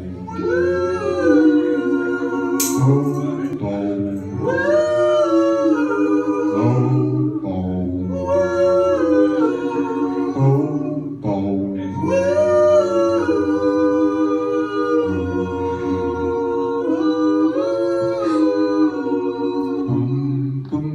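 Male vocal group singing a cappella in close harmony through microphones, several voices holding chords while a bass voice sings short low notes beneath.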